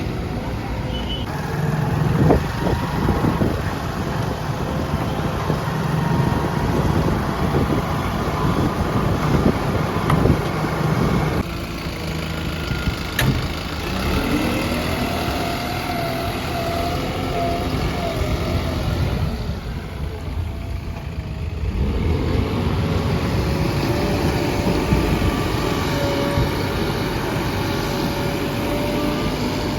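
Backhoe loader's diesel engine running under working load, with a few sharp knocks about two seconds in. About halfway through, the engine note rises and holds for several seconds, as when it revs up under hydraulic load.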